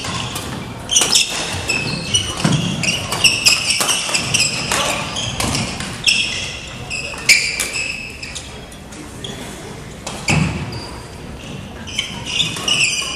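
Badminton shoes squeaking and stamping on a wooden gym floor during a rally, with sharp cracks of racquets hitting the shuttlecock, echoing in a large hall. The squeaks thin out for a while past the middle, then pick up again near the end.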